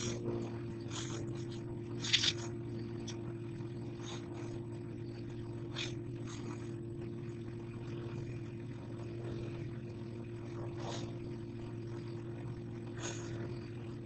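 An engine running steadily at an even pitch, with brief scraping and snapping noises over it, the sharpest about two seconds in.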